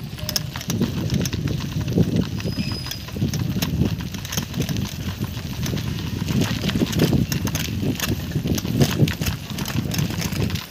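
Bicycle being ridden over a rough dirt and gravel road, with irregular rattles and clicks from the bike over the bumps and a steady low rumble of wind on the microphone.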